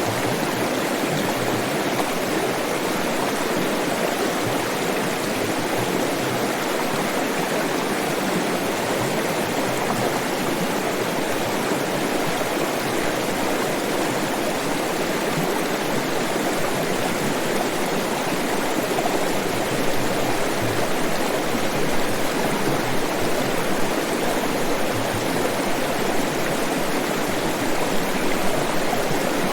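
Flowing water rushing steadily, a continuous even sound, becoming slightly louder and more uneven about two-thirds of the way through.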